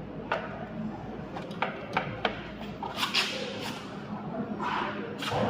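Scattered clicks and light knocks of tools and parts being handled, with a couple of brief rustling scrapes.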